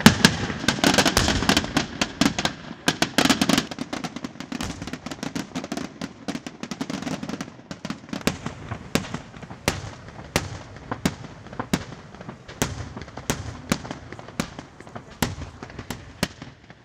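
Fireworks display: a dense, rapid volley of bangs in the first few seconds, then single bangs at a steady pace of a little more than one a second, slowly growing quieter.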